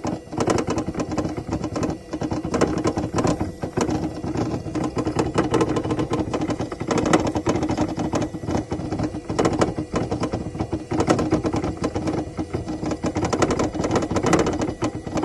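Car engine running with a rapid, uneven ticking clatter over a steady hum, the rough running of an engine with a misfire.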